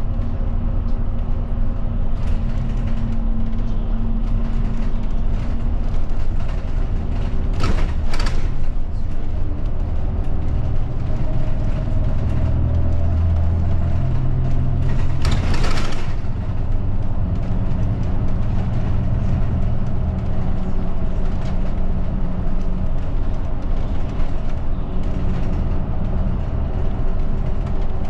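Route bus engine and road noise heard from inside the cabin while the bus drives, the engine note shifting up and down. Two brief hissing bursts come about eight seconds in and again just past halfway.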